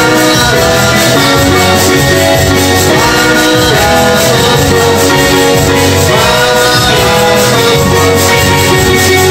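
Live male singing over a Yamaha Tyros arranger keyboard playing a full backing accompaniment with a steady rhythm.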